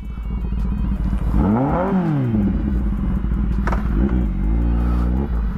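Kawasaki ZX-10R inline-four engine revving up and falling back about two seconds in, then pulling up again in short steps near the end before easing off.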